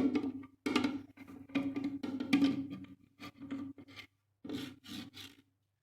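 Plastic toilet float-valve parts being handled and refitted in a cistern: a sharp click, then a run of stop-start scrapes and knocks. Each scrape carries the same low tone.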